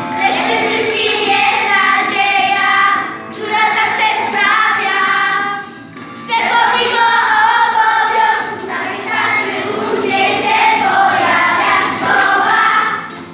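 A group of schoolchildren singing a song together, pausing briefly between lines about three and six seconds in.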